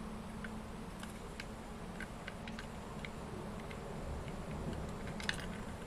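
Scattered light clicks and taps of fingers handling a plastic Plarail toy train car, with a small cluster of clicks near the end, over a steady low hum.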